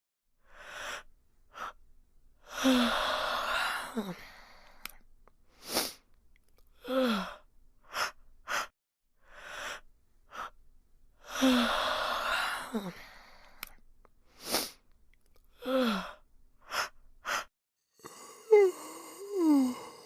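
A person yawning: twice a long breathy yawn with a falling, voiced groan, about two and a half seconds and eleven and a half seconds in. Shorter breaths and clicks come between the yawns, and brief falling vocal sounds come near the end.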